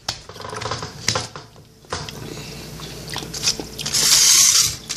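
Reese's peanut butter cup being unwrapped and eaten: foil wrapper crinkling and rustling, with biting and chewing. A louder rustle comes about four seconds in.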